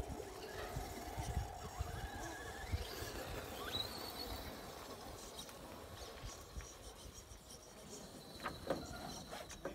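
Electric RC rock crawler's motor and gears whining faintly as it creeps up a wooden plank, the whine rising and falling in pitch, with a few knocks about eight and a half seconds in.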